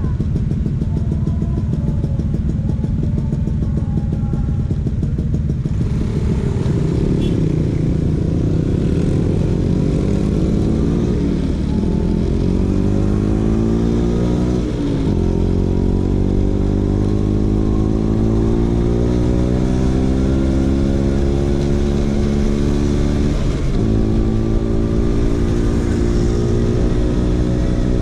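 Vespa PX 150's single-cylinder two-stroke engine running through a DRC Victory racing exhaust under way. Its pitch climbs, drops sharply and climbs again three times as it changes up through the gears.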